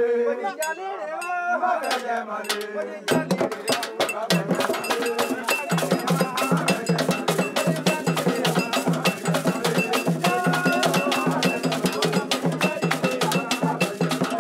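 A metal bell struck rapidly in a steady rhythm over a low pulsing beat: village percussion music. A man speaks in the first few seconds, before it starts.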